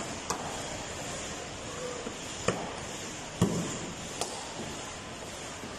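Bare-foot kicks smacking a taekwondo kick paddle: four sharp slaps, unevenly spaced, the loudest about three and a half seconds in.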